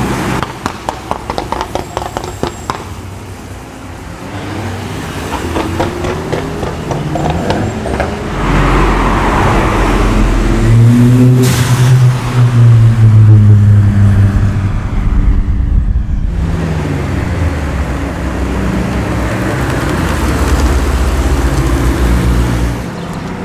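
Cars passing at speed on a racetrack, their engines rising and falling in pitch as they go by. A quick run of exhaust pops and crackles comes in the first few seconds.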